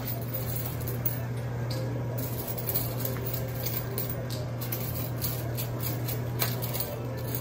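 Coin pusher machine running: a steady low hum from its pusher drive, with light scattered clinks of quarters shifting on the playfield and one sharper clink about six seconds in.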